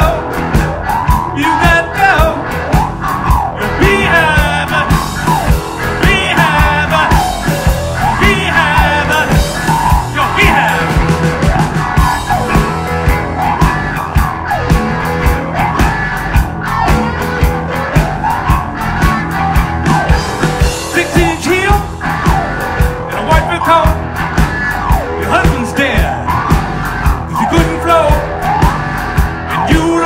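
Live rock band playing: electric bass, electric guitar and a drum kit keeping a steady beat, with a man singing at times.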